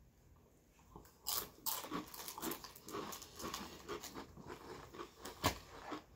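Paqui One Chip Challenge tortilla chips being bitten and chewed, a quick run of crunches starting about a second in, with a louder crunch near the end.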